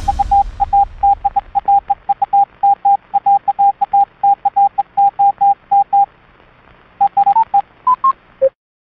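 Morse code sent as a keyed beep tone: a fast run of short dots and longer dashes on one steady pitch for about six seconds. After a pause, a few more beeps, two slightly higher ones, and a final lower beep, then it cuts off.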